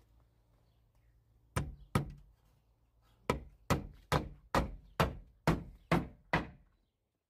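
Hammer striking a nail into a wooden edge board: two blows, then after a pause a steady run of eight blows at about two a second.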